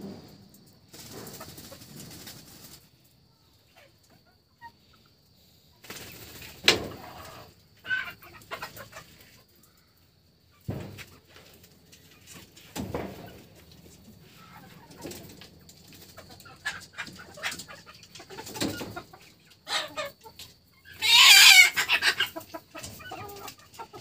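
Domestic chickens clucking on and off, with scattered short calls and rustles and a loud, noisy burst about three-quarters of the way through.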